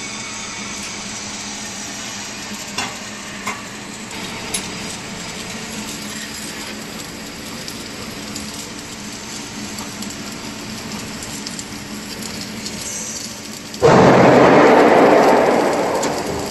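MIG welding in a shop: a steady low hum with a few sharp clicks, then about three seconds before the end a loud sizzling crackle of the welding arc starts suddenly and fades.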